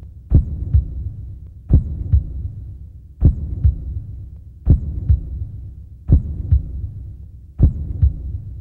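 A low double thump, like a heartbeat, repeating about every one and a half seconds over a steady low hum.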